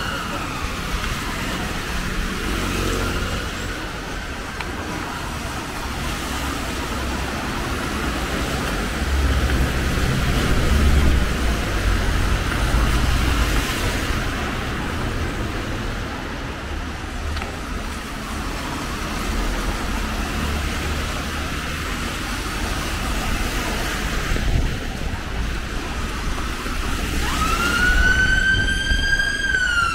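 An emergency vehicle siren falls in pitch and fades in the first second. It comes back near the end, rising and then falling in a wail. Under it runs steady road traffic, which swells about ten seconds in.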